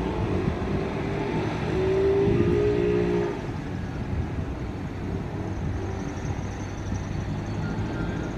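Road traffic: cars, a city bus and a loaded tipper truck run and pass by with a steady rumble, louder for a moment about two seconds in. Over that louder stretch a brief pitched tone sounds for about a second and a half.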